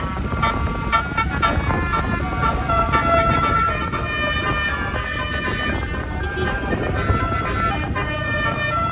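Bus 'telolet' horn: a 36-trumpet musical air-horn set playing a quick melody of held, stepping notes over a low rumble.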